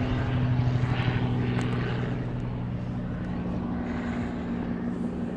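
A steady, low engine-like drone made of a few constant low tones. It holds level in pitch and loudness, with some noise over it.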